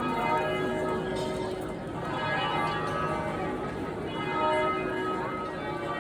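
Church bells ringing, struck repeatedly, each strike's tones ringing on into the next.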